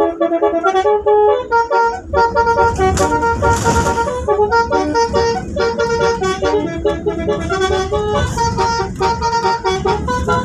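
Indonesian bus 'telolet' horn, a set of multi-tone air horns, playing a quick melody of short notes again and again, with a low rumble underneath from about two seconds in and a brief hiss a few seconds in.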